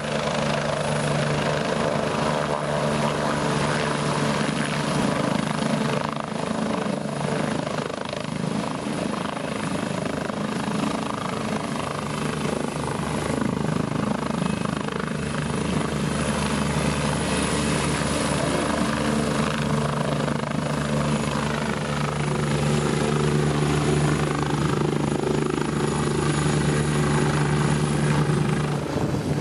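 Eurocopter EC145 air-ambulance helicopter hovering low, setting down on grass and running on the ground. There is a steady rotor beat with a thin high turbine whine, holding unbroken throughout.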